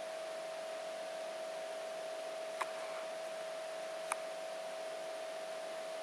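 Steady hiss with a constant mid-pitched hum and no bird calls: the recording's own background noise. Two short, sharp clicks come about two and a half and four seconds in.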